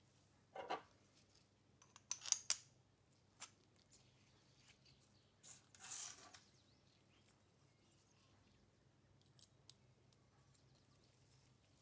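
Quiet, scattered metallic clicks and short scrapes as the steel parts of a century-old ratchet screwdriver are handled and fitted together by gloved hands. The loudest clicks come about two seconds in, with a brief scrape around six seconds in.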